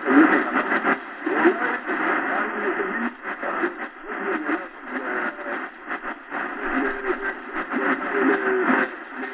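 Voice from a shortwave upper-sideband broadcast playing through the XHDATA D-901's speaker. The sound is thin and narrow, with a steady haze of static behind it.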